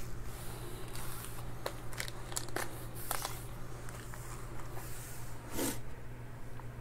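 Foil trading-card packs crinkling and rustling as they are handled and restacked, with scattered light clicks, over a steady low hum.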